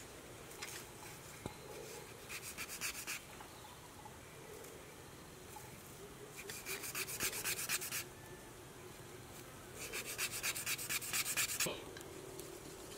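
Quick rhythmic rasping of bamboo worked by hand, in three bursts: a short one about two seconds in, then longer ones around seven and ten seconds in.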